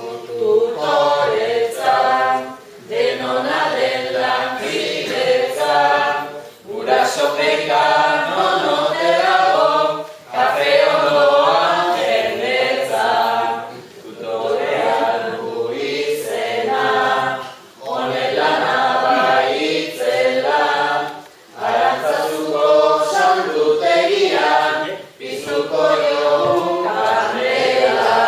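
A group of voices singing Basque koplak verses unaccompanied, line by line, with a short pause for breath every three or four seconds.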